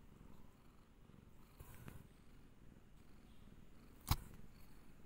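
Mother cat purring quietly and steadily while her newborn kittens nurse, with one sharp click about four seconds in.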